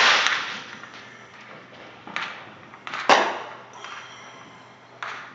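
Fireworks going off: a series of sharp bangs, each trailing off over about a second. The first comes right at the start, a weaker one about two seconds in, the loudest about three seconds in, and another near the end.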